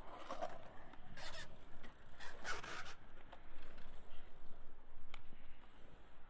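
BMX bike tyres rolling on concrete, with three short rasping scrapes in the first three seconds.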